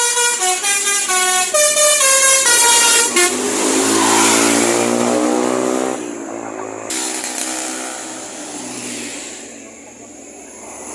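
Bus telolet (Basuri-type) air horn playing a quick melody of stepped notes for about three seconds. Then the passing bus's engine and road noise swell and fade away.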